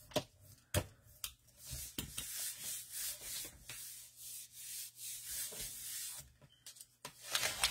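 Hand rubbing paper down onto an inked stencil on a gel printing plate to lift a print, a run of swishing strokes about two a second, after a few light taps at the start.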